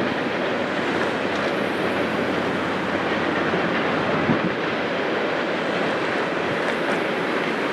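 Freight cars of a long Canadian National freight train rolling across a trestle bridge: a steady rumble and rattle of wheels on rail, with one sharp clank about four seconds in.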